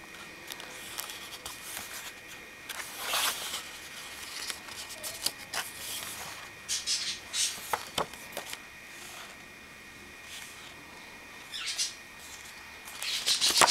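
Cardstock pages of a ring-bound scrapbook being handled and turned: intermittent rustling and scraping of paper, with a few sharp clicks.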